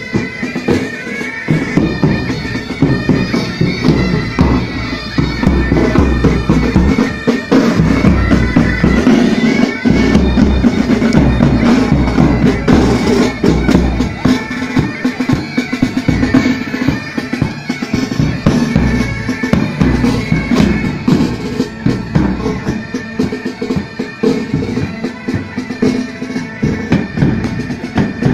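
A military pipe band playing on the march: bagpipes sounding a steady drone under the chanter melody, with the band's drums beating along throughout.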